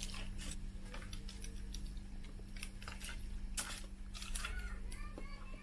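Close-miked eating: irregular crisp clicks and crunches of chewing and mouth sounds, over a low steady hum.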